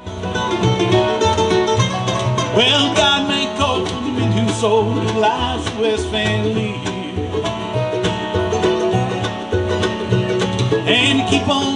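A live band playing the instrumental opening of a country song, with plucked strings over a steady bass line.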